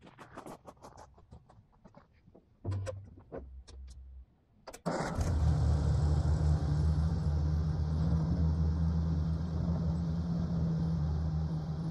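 Footsteps on dry leaves and ground, then an old Ford tractor's engine is cranked over briefly and catches about five seconds in, running at a steady idle.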